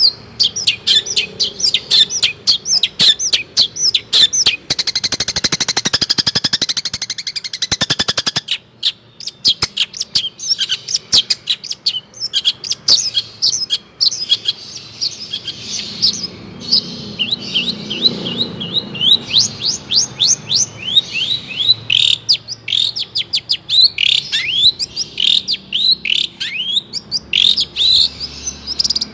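Long-tailed shrike (cendet) singing a fast, varied song of sharp chirps and short down-slurred whistles, broken by a dense buzzing rattle about five to eight seconds in.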